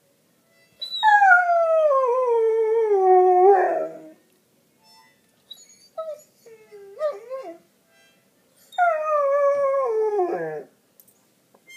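Goldendoodle howling: two long howls, each sliding down in pitch over two to three seconds, with a few short rising-and-falling calls between them.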